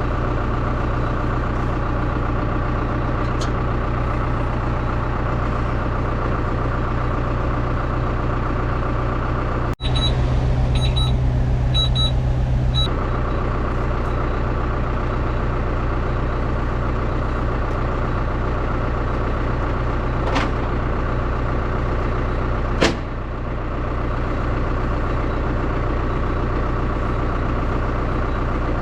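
Oliver 1755 tractor engine running steadily, with a run of high electronic beeps about ten seconds in from the round baler's monitor, sounding its net wrap failure alarm. A sharp click comes near the end.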